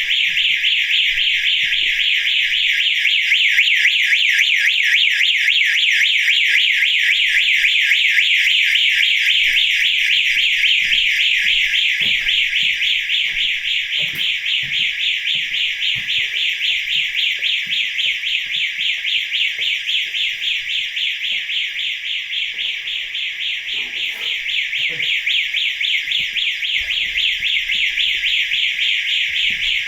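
Building intruder alarm sounding continuously after its motion sensors were triggered: a loud, high electronic tone pulsing rapidly without a break.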